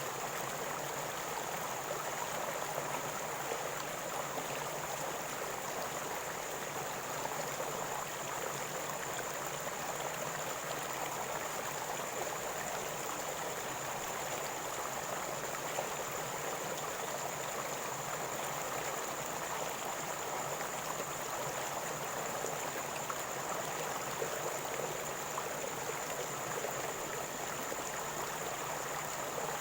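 River water gurgling and rushing in a steady, unbroken flow, with a thin steady high-pitched tone above it.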